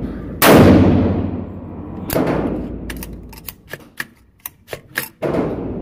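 AR-style rifle shots, three in a few seconds, each followed by a long echo off the walls of an indoor range; the loudest comes about half a second in. Between the second and third shot there is a run of light, sharp clicks.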